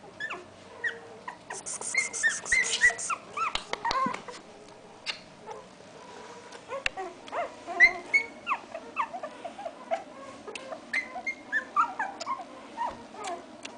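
A litter of very young puppies squeaking and whimpering: many short, high-pitched cries that rise and fall, overlapping one another.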